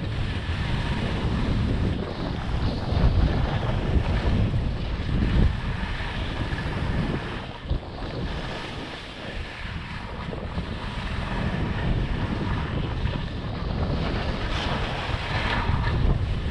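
Wind rushing over the microphone of a skier moving downhill, with skis scraping and chattering over choppy, chopped-up snow. The rush eases a little about eight seconds in, then builds again.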